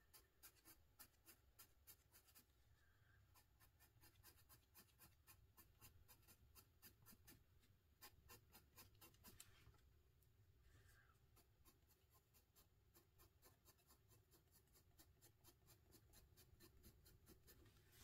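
Faint scratching of an Arrtx soft-core coloured pencil shading on paper in quick short strokes, several a second.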